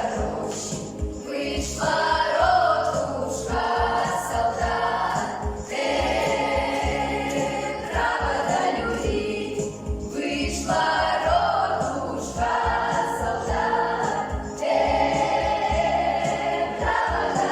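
Children's folk ensemble singing a Russian song together in chorus, phrase after phrase.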